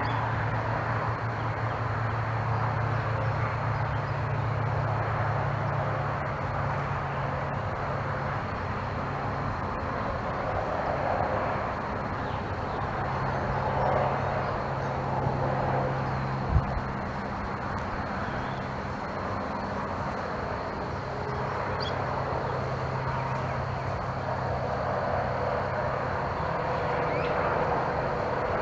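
Outdoor ambience: a steady rushing background with a low engine drone that fades in and out, and one short sharp click a little past halfway.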